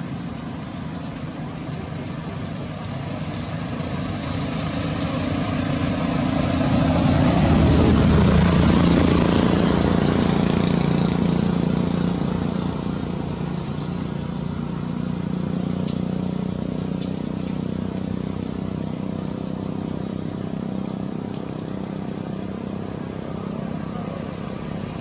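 A motor vehicle passing: its engine hum and road noise swell to a peak about eight seconds in, then fade. A steady low rumble of traffic lies underneath throughout.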